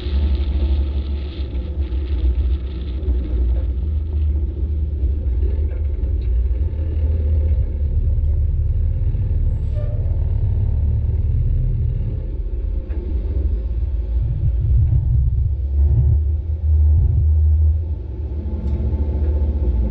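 Steady low rumble of a tow truck running, with the sound concentrated deep in the bass and wavering in strength.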